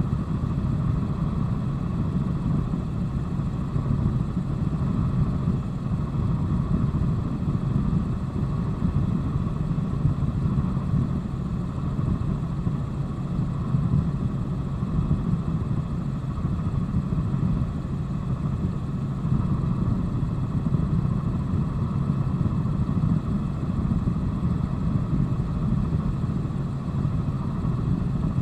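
Helicopter in flight, heard from a passenger's body-worn camera: the engine and rotor make a steady, unchanging drone.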